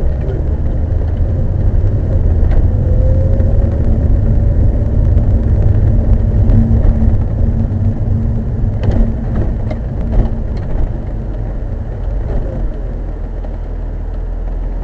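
Car interior noise while driving: a low road and engine rumble with a faint steady tone, and a quick cluster of knocks or rattles about nine to ten and a half seconds in. This is the noise the driver calls terrible, one that came back after an earlier repair.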